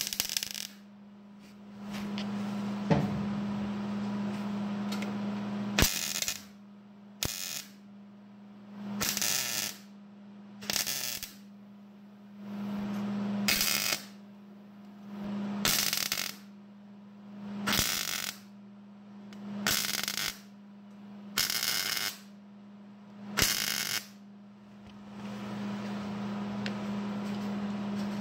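Welder laying a series of short tack welds on thin sheet-metal body panel: about ten brief bursts of crackling weld arc, roughly two seconds apart, over a steady low hum.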